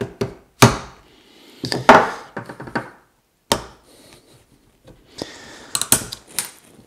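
A soft-faced mallet knocking a screwdriver against a stuck push-on washer on a brake-plate axle, several sharp knocks in the first few seconds. About five seconds in, quick metal clicks and scraping as the screwdriver tip pries at the washer.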